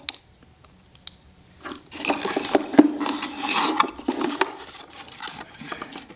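Hands rummaging in a cardboard box and pulling out packaged items: scraping and rubbing with many sharp clicks, loudest from about two to four and a half seconds in.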